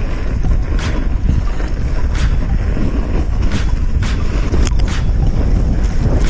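Wind buffeting the microphone with a heavy rumble on a mountain bike racing downhill. Several sharp clatters come through as the bike jolts over bumps.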